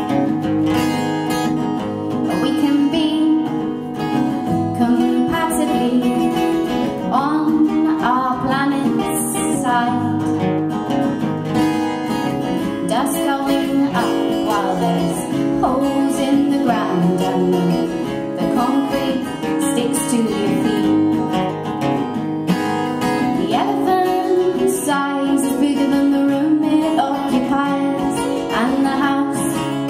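Two acoustic guitars playing an instrumental passage of a live folk song.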